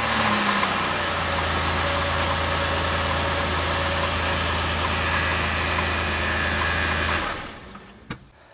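Car engine idling steadily, then shut off about seven seconds in, its sound dying away over about a second; a light click follows.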